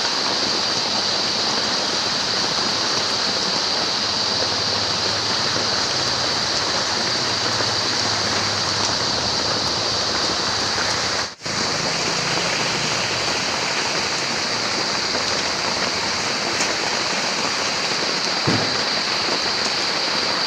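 Steady heavy rain falling outdoors, an even hiss without a break except for a split-second cut about halfway through, with one faint low thump near the end.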